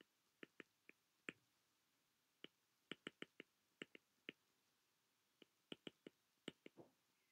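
Faint, sharp taps of a stylus tip on an iPad's glass screen while handwriting, about twenty irregular clicks coming in small clusters.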